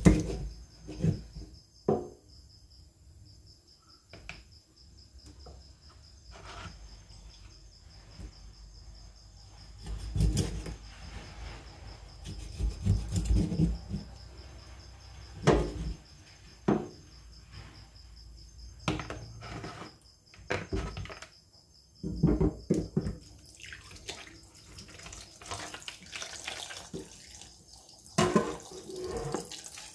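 Kitchen knife cutting and scraping fish in a stainless steel sink: irregular knocks and scrapes with short pauses between them. Near the end the tap runs into a plastic container.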